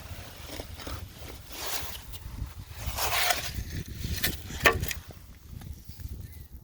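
Scrapes and a couple of sharp clicks from digging into wet sand, over a low steady rumble.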